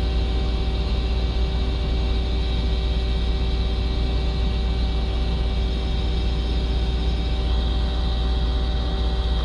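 Steady low drone of running machine-shop machinery, with a few constant humming tones over it.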